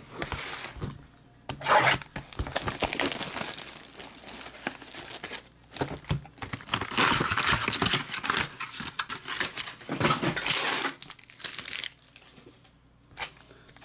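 Tearing and crinkling as a sealed trading-card hobby box is opened and its foil-wrapped pack is handled, in irregular bursts with short pauses.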